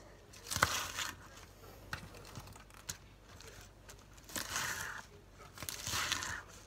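Kitchen knife chopping crisp lettuce on a plastic cutting board: crunching cuts in three short bursts, with a few light knocks between.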